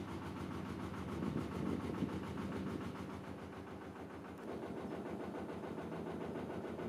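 Narrowboat's diesel engine running steadily under way, a rapid regular beat.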